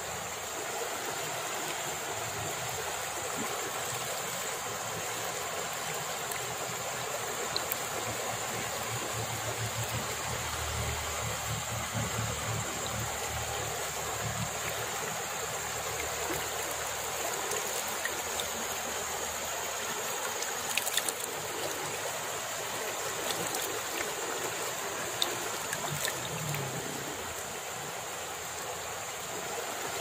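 Shallow river running over rocks: a steady rush of flowing water, with a few light clicks about two-thirds of the way through.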